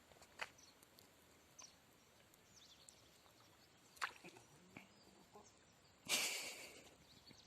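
Quiet outdoor ambience with scattered small clicks and a few faint bird chirps, broken about six seconds in by a brief loud rush of noise that fades within a second.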